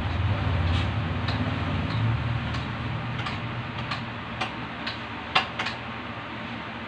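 Metal fork clicking and tapping against a ceramic bowl and plate while a grilled eggplant is dipped in beaten egg: a scattering of light clicks, the loudest about five seconds in, over a low hum that fades after the first couple of seconds.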